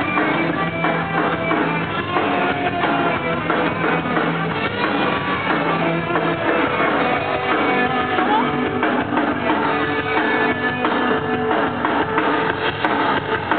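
Live rock band playing loudly, with electric guitars and drums. The recording sounds dull, with the highs cut off.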